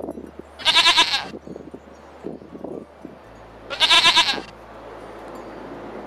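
Goats bleating: two loud, quavering bleats about three seconds apart, each lasting under a second.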